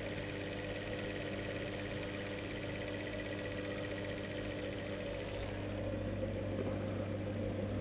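Commutator motor from an old washing machine running steadily at low speed with an even hum. The supply voltage sits around 202.7 V, just above the point where it stalls.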